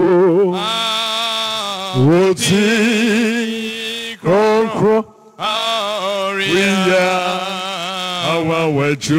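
A man singing a slow worship chant solo into a microphone: long held notes with a wavering pitch, broken by short breaths and a brief pause about five seconds in.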